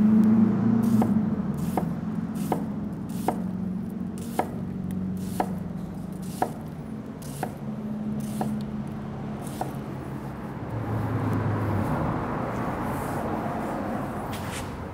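Chef's knife dicing a red onion on a wooden cutting board: sharp knife strikes against the board, about one a second, over a low steady hum. A softer scraping follows near the end.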